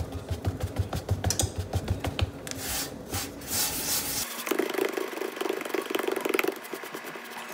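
Pearl-millet (bajra) dough being patted by hand into a rotla on a floured steel plate: quick, repeated soft thumps and slaps of palms on dough. About four seconds in, the patting gives way to a softer rubbing as the palm presses and smooths the dough flat.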